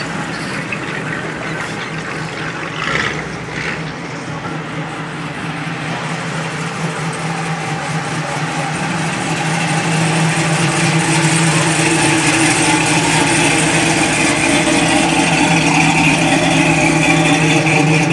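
Low, steady V8 rumble of classic cars creeping past at idle. It grows louder about halfway through as a 1969 Camaro SS with a 350 small-block rolls close by.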